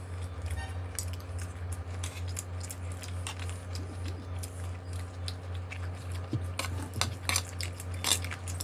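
A spoon clinking and scraping on plates, with scattered short clicks of cutlery and chewing mouth sounds while food is eaten. A steady low electrical hum runs underneath.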